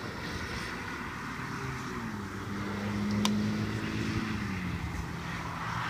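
An engine drone with a steady pitch that rises slightly and then falls back, and a single sharp click about three seconds in.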